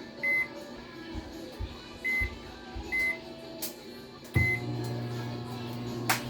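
Microwave oven keypad beeping four times as buttons are pressed. Then the oven starts up with a steady low hum about four and a half seconds in. There is a sharp click just before the end.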